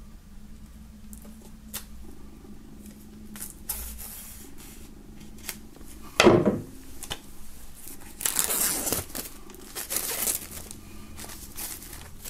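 Plastic shrink-wrap being cut and pulled off a CD in a cardboard slipcase: small scattered handling clicks, a knock about six seconds in, then bursts of crinkling and tearing plastic over the last few seconds.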